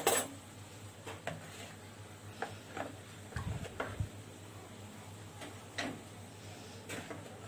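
Metal spoon stirring bulgur soaking in hot water in a plastic bowl, with a few light, scattered clicks and knocks of the spoon against the bowl.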